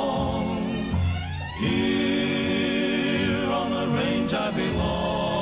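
Male vocal group singing in harmony, holding long notes with vibrato over guitar accompaniment. The chord shifts about a second and a half in and again near the end.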